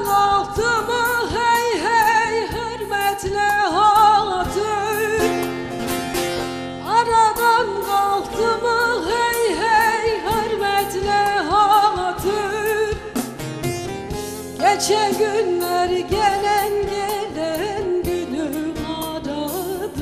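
A woman singing a Turkish song into a microphone in long, wavering, ornamented phrases over an instrumental accompaniment. New phrases start strongly about seven and fifteen seconds in.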